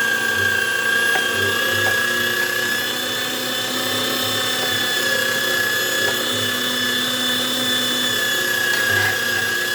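Electric meat grinder running steadily with a high motor whine while grinding beef, with a few faint clicks.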